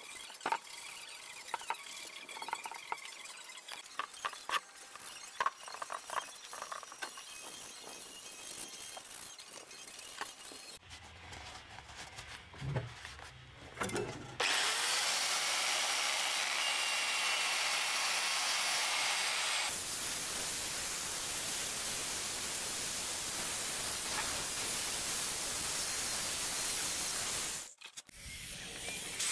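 Hand scrubbing and rubbing on a metal motorcycle swingarm, with scattered scrapes and small knocks. About halfway through, a random orbital sander starts and runs with a steady, even noise. Its sound shifts slightly about two-thirds through, and it stops abruptly shortly before the end.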